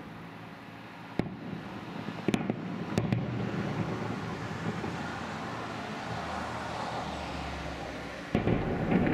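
Aerial firework shells bursting: a sharp bang about a second in, a few more in quick succession over the next two seconds, a continuous rumble between them, and another loud bang near the end.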